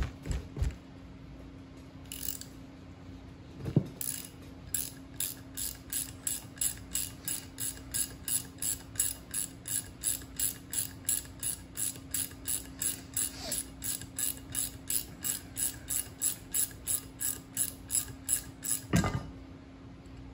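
Ratchet wrench clicking steadily, about three clicks a second, as a brake caliper bracket bolt is backed out. A knock comes just before the clicking starts and another as it stops.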